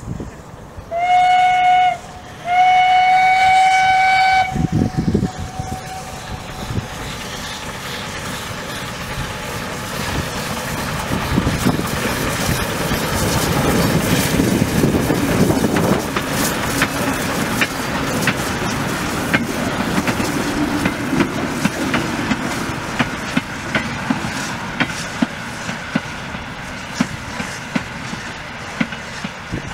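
Small steam tank locomotive sounding its steam whistle twice, a short blast then a longer one, then running past working steam, loudest as it goes by, followed by a long run of sharp clicks and knocks as the carriages roll past over the rails.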